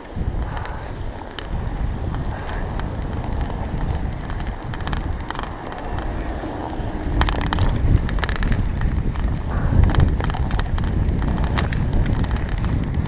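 Bicycle ridden over fresh snow: a continuous rumble of tyres and wind buffeting the camera's microphone, with scattered sharp clicks from the bike.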